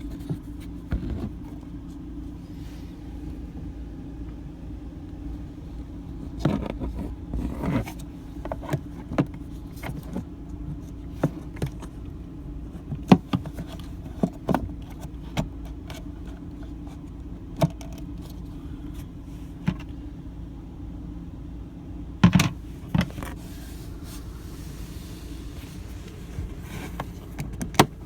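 Scattered clicks, knocks and scrapes of a plastic RV toilet valve assembly being worked into its track by hand, over a steady low hum.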